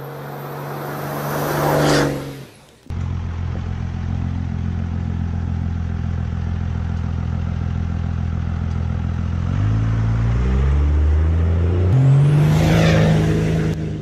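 Dodge Dakota R/T's 5.9-litre V8 engine running. About three seconds in the sound cuts off suddenly to a steady low engine note, which rises in pitch as it accelerates near the end.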